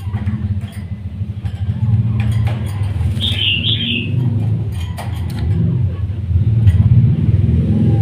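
Low engine rumble of a nearby motor vehicle, swelling near the end, with a short burst of bird chirps about three seconds in and scattered light taps as a bird pecks at food on a wooden board.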